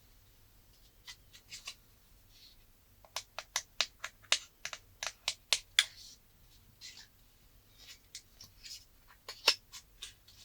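Hands handling the phone and its accessories during an unboxing, making sharp clicks and taps. A quick run of about a dozen taps at roughly four a second comes in the middle, then scattered clicks, with the loudest near the end.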